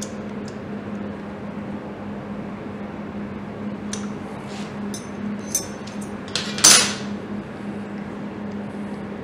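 Light clicks and small metallic clinks of hands working the ignition coil pack and its leads on a motorcycle engine, with one louder, harsher rattle about two-thirds of the way in, over a steady low hum.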